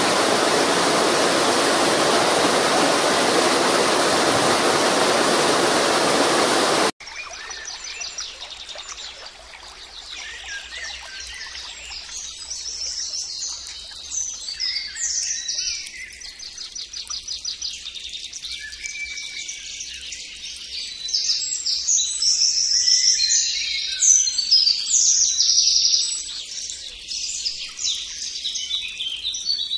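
A steady rush of flowing stream water cuts off abruptly about seven seconds in. Then several songbirds sing and chirp, busiest toward the end.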